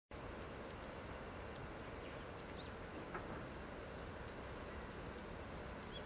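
Many wild birds chirping and calling in short, high notes over a steady low background rumble. The sound starts suddenly at the very beginning.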